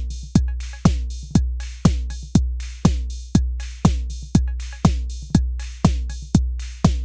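Drum machine beat at a steady tempo, about two beats a second: each kick is a long, booming low note, with pitched percussion hits that fall in pitch on top.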